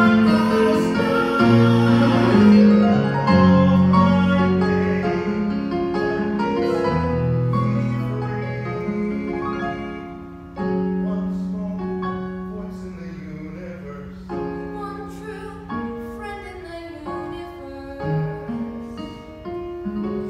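A man singing a musical-theatre song live over an instrumental accompaniment, the music growing quieter through the second half.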